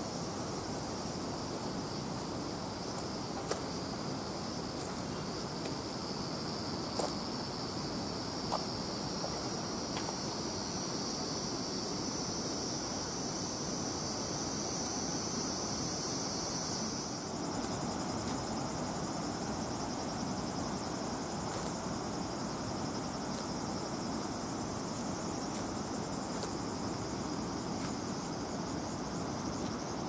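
Steady high-pitched chorus of singing insects, strongest in the first half and dropping suddenly about seventeen seconds in, over a steady low background hiss.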